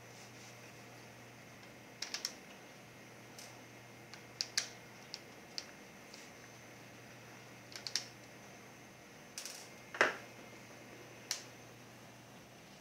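Scattered small clicks and taps of plastic and metal parts being handled as an Acer Aspire One netbook is taken apart, irregular and a few seconds apart, with the loudest click about ten seconds in.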